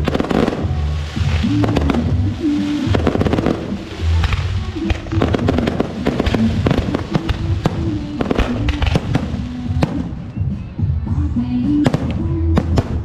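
Fireworks and firecrackers going off in rapid, overlapping bangs, thinning out after about ten seconds, over loud music.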